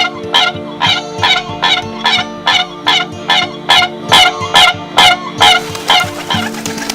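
Siberian crane calling in a rapid series of short, loud calls, about two to three a second, stopping near the end, over a steady musical drone.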